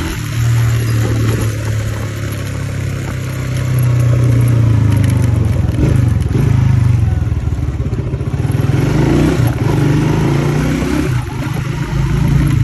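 Motorcycle engine running under way as the bike is ridden, a steady low drone whose pitch drops and picks up again a few times in the second half as the throttle changes.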